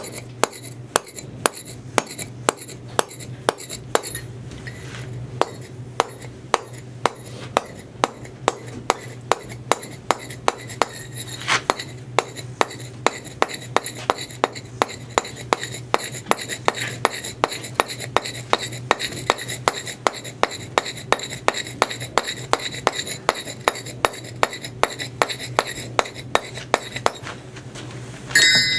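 Mallet striking a steel chisel on a stone block in a steady run of sharp taps, about two to three a second, taking the angles off the chamfer's edge so the stone doesn't pluck out. The taps pause near the end, followed by a louder clatter.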